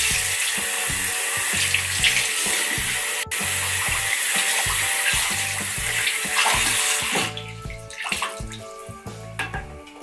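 Bathroom washbasin tap running, water pouring over a doll's hair into the basin, then turned off about seven seconds in.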